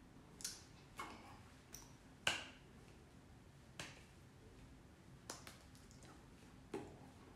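Hands clapping and slapping together as they make signs, heard as about seven faint, sharp taps at irregular intervals; the loudest comes a little past two seconds in.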